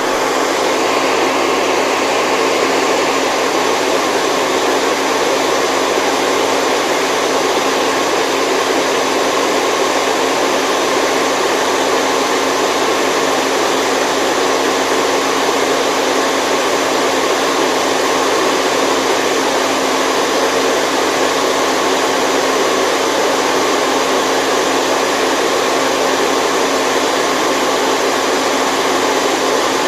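Steady, unbroken white noise with a low hum under an even hiss, the kind played to lull a baby to sleep.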